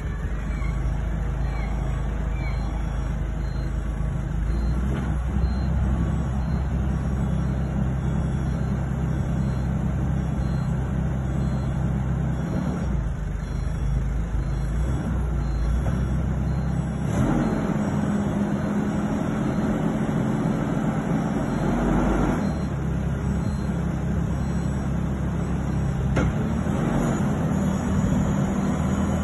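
LPG-fuelled engine of a JCB TLT30G telescopic forklift running steadily while the boom is worked. Its note rises and holds for about five seconds past the middle, and again near the end.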